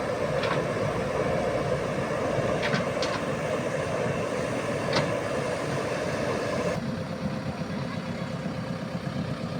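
Heavy construction machine engine running steadily, with a few short clicks or knocks in the first half. The sound turns duller about two-thirds of the way through.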